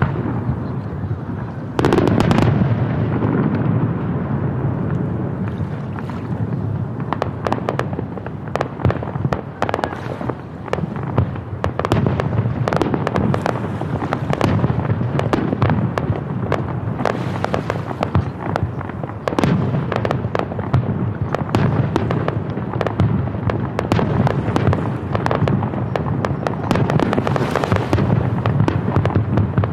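Aerial fireworks display: shells bursting in quick succession, a dense run of sharp cracks and pops over a constant rumble of booms, with a loud burst about two seconds in.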